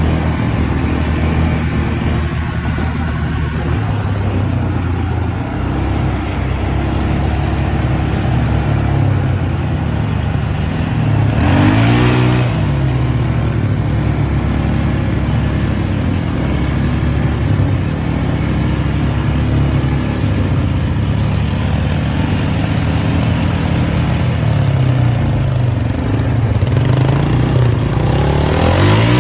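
ATV engine running steadily while the quad drives over a muddy gravel trail, with a steady rush of noise over it. The engine revs up and back down about twelve seconds in and again near the end.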